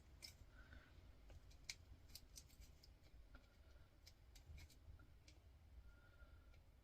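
Near silence broken by a dozen or so faint, sharp clicks at irregular intervals: hand wire cutters snipping through a small motor's copper winding.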